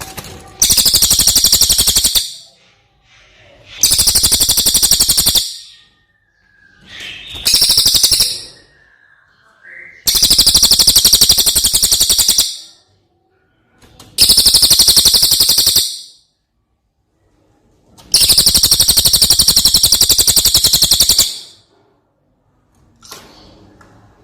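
Brown cililin songbird singing loud, rapid, high trills in six separate phrases of one to three seconds each, with short pauses between them and a faint gliding whistle in one pause.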